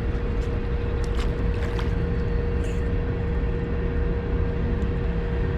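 Train rumbling in the distance: a steady low rumble with a continuous hum over it, and a few faint clicks.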